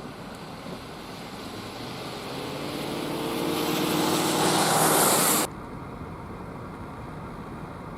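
A vehicle approaching on a snowy road: engine hum and tyre hiss growing steadily louder, then cut off abruptly about five and a half seconds in.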